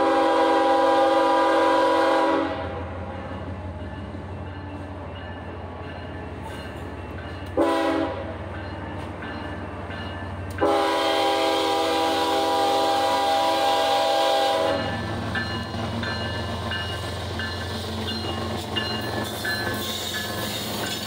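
Diesel freight locomotive's air horn sounding for a grade crossing: a long blast, a short one, then another long one, over the engine's steady low drone. After the last blast the locomotive and its tank cars roll past with a steady rumble and wheel clatter.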